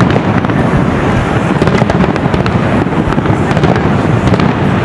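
A dense barrage of aerial fireworks shells bursting one after another. Overlapping booms mix with many sharp cracks.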